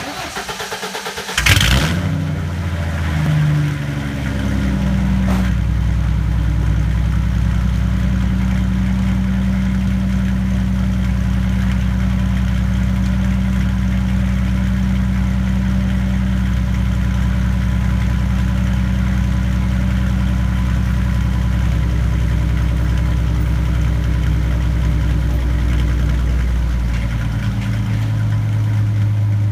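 A 2000 Ford Mustang 3.8-litre V6 with long-tube headers, an off-road X-pipe and a muffler-deleted GT catback, cold-starting. The starter cranks for about a second and a half, the engine catches loudly, wavers for a few seconds, then runs at a steady idle. The exhaust note shifts about two seconds before the end.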